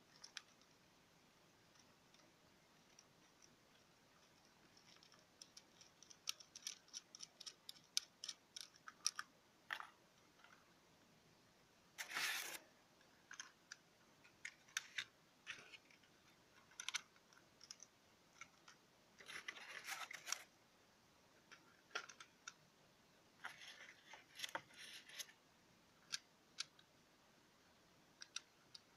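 Faint clicks and scrapes of small clock parts being handled as a quartz clock movement is fitted to a vinyl record clock and its hand nut is turned on. A quick run of clicks comes between about five and ten seconds in, followed by a few short scraping bursts.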